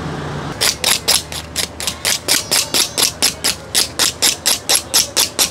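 A knife scraping the charred skin off a roast yam, in quick rasping strokes about four or five a second, starting about half a second in.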